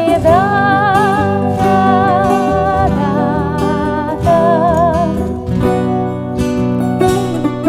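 Acoustic ensemble music: guitar and bouzouki playing under a held melody line that wavers with vibrato for about the first five seconds, then plucked strings carry on alone.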